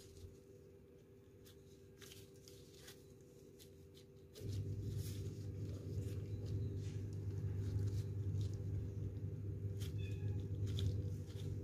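Soft rustling and light taps of plastic-gloved hands folding and pinching fatayer dough around its filling. Beneath them a steady low hum drops away at the start and comes back about four seconds in, louder than the handling.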